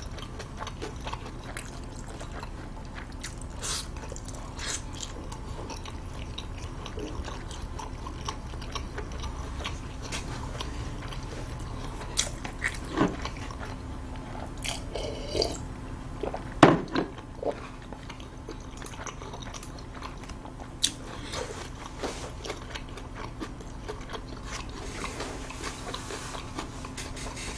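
Close-miked chewing and mouth sounds of a man eating: quiet, scattered smacks and clicks over a steady low hum. The sharpest click comes about two-thirds of the way through.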